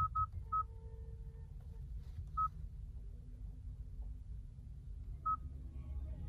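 Short electronic key-press beeps from the Hyundai Tucson's infotainment touchscreen as on-screen buttons are tapped: three quick ones at the start, then single beeps about two and a half and about five seconds in, over a faint low steady hum.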